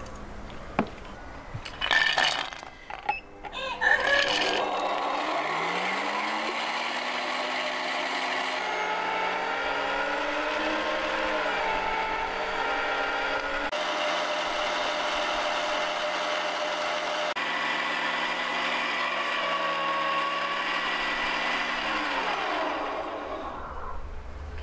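Silver Turbo Force electric meat grinder after a few knocks as it is set up: it spins up about four seconds in, runs steadily with a motor whine whose pitch wavers as onion is pushed through, and winds down near the end.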